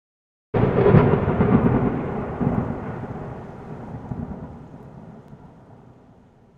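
A sudden loud thunder-like crash about half a second in, rumbling on and slowly fading away over the next six seconds.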